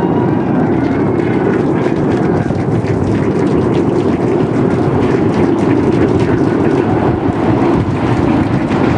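SpaceX Super Heavy booster's 33 Raptor methane engines firing at full thrust during ascent: a loud, steady, deep rocket rumble with crackling running through it.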